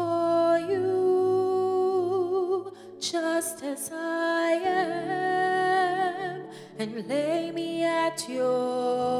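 A woman singing a slow gospel song solo, holding long notes with vibrato, over soft sustained backing music.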